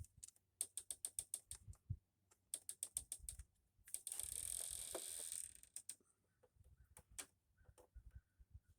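Ratchet clicking in quick runs while loosening the carburetor fasteners on a 50cc GY6 scooter, with a short hissing rush lasting about a second and a half midway and a few scattered clicks near the end.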